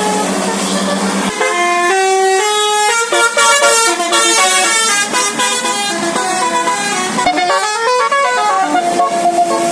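A bus's basuri telolet horn, a set of several horns sounding together, playing a tune. It holds one chord for about a second, then steps quickly through changing notes, with a sliding rise and fall in pitch about three-quarters of the way through.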